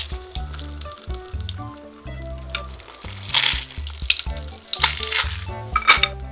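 Background music, with short bursts of hissing, sizzle-like kitchen noise over it about three and a half seconds in and again near the end.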